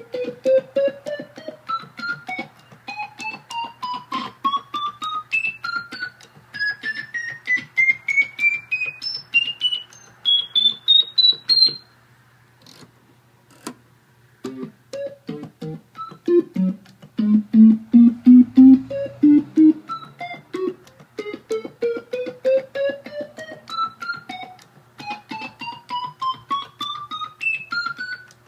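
Vox Continental V301E transistor combo organ played one short note at a time in a rising run up the keyboard. It breaks off for a moment, gives a few louder low notes, then starts another rising run. A steady low hum sits underneath.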